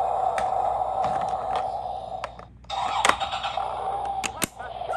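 Adventure Force battery-powered toy jeep running: a steady buzzing whirr with scattered plastic clicks. The whirr cuts out for a moment about halfway, then comes back with a sharp click.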